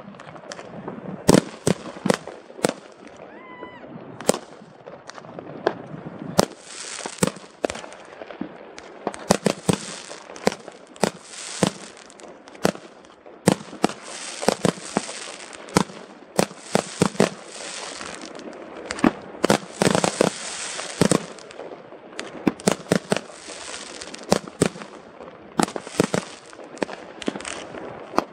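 Fireworks display: a rapid, irregular run of sharp bangs from bursting shells and rockets, joined from about six seconds in by long stretches of hiss.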